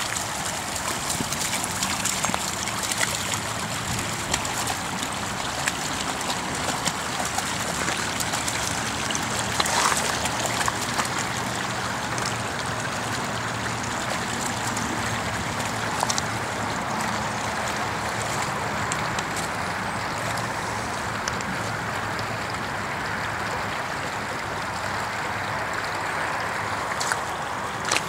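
Shallow creek running steadily over stones, with a few short splashes from a dog wading through the water.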